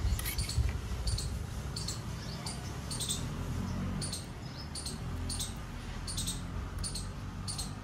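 A bird chirping over and over, short high chirps about two a second, often in pairs, over a low steady rumble.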